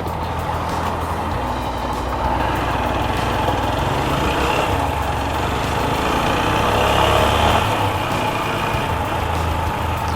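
Single-cylinder engine of a TVS Apache RTR 160 4V motorcycle running steadily while riding, with wind and road noise; it grows louder toward the middle and then eases off.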